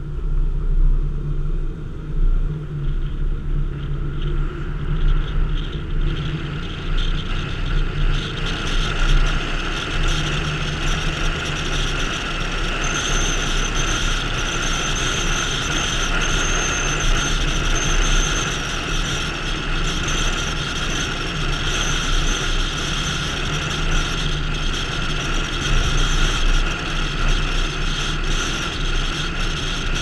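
A car driving on a paved road: a steady low engine hum under tyre and wind noise. The noise builds over the first several seconds as the car picks up speed, then holds steady.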